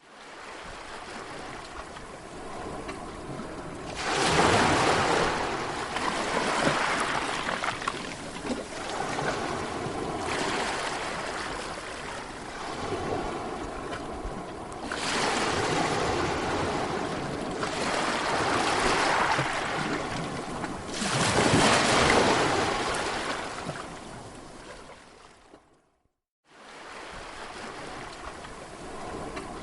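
Sea waves breaking and washing in, rising to louder breakers about 4, 15 and 21 seconds in and ebbing between. The sound fades and cuts out briefly about 26 seconds in, then resumes.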